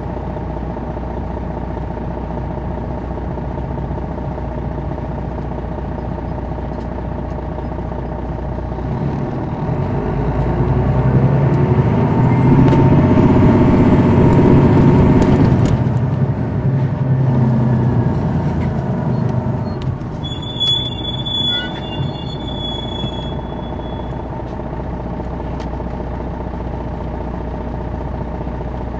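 2001 MCI D4000 coach's Detroit Diesel Series 60 engine running, building up in pitch and volume under acceleration from about ten seconds in, with a high whine climbing along with it, then easing back off from about sixteen seconds. A brief high squeal and a few clicks come near twenty-one seconds.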